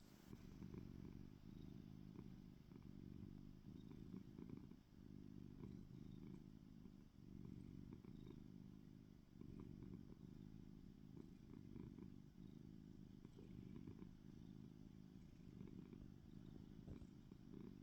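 Domestic cat purring steadily and softly, the purr swelling and easing every two seconds or so with its breathing.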